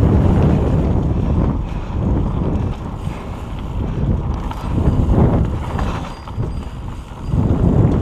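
Wind buffeting the microphone of a camera mounted on a mountain bike, mixed with tyre and frame noise from riding a dirt trail. The noise swells and eases several times, with the strongest surges near the start, about five seconds in, and near the end.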